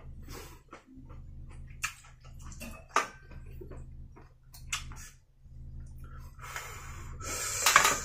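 Person eating seafood close to the microphone: wet chewing and sucking with scattered small clicks and snaps of shell, and a louder stretch of hissing noise near the end, over a steady low hum.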